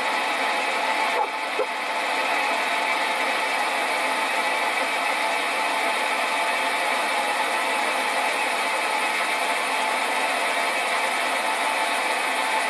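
Sieg SC4 bench lathe running steadily while it takes a facing cut on a cylinder casting under the cross-slide power feed. It dips briefly with a small click about a second in.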